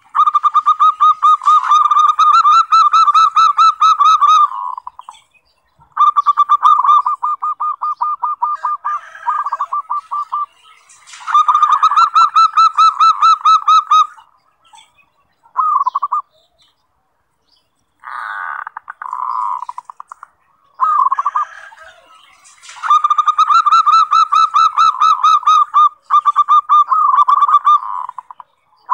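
Zebra dove (perkutut) cooing: several long phrases of rapid staccato notes, each phrase a quick pulsing trill, separated by pauses of a second or two.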